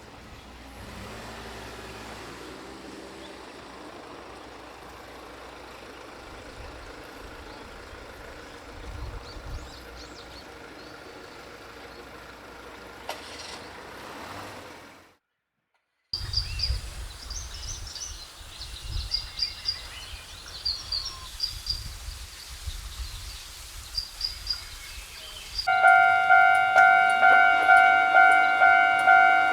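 Outdoor background noise, then after a brief cut, small birds chirping. Near the end a Japanese level-crossing warning bell starts, a loud electronic ding repeating about twice a second.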